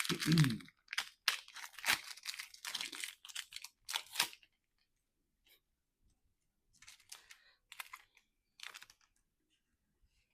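A plastic trading-card pack wrapper being torn open and crinkled, in a run of crackling bursts over the first few seconds, then fainter, scattered crinkles later on.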